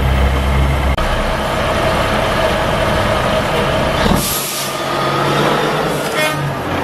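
Diesel engine of an American long-hood semi-tractor, Caterpillar-powered, running as the truck pulls up. About four seconds in the air brakes let out a sharp hiss, and a shorter hiss of air follows a couple of seconds later.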